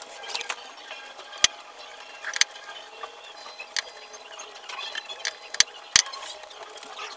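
Hands taping spliced wire joints: rustling and crackling of tape and wire being handled, with several sharp clicks.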